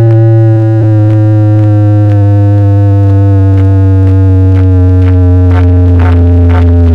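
A loud, heavy bass note and a synth drone played through a DJ sound system, the pitch sliding slowly downward, with drum hits coming in near the end.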